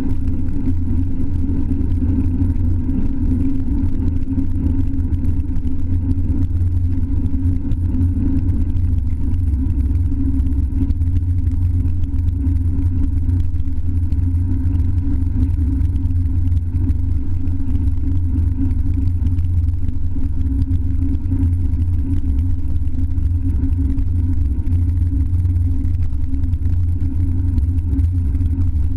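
Steady low rumble of wind buffeting and road vibration picked up by an action camera mounted on a road bike's handlebars while the bike is ridden. It runs unbroken and even, with no distinct events.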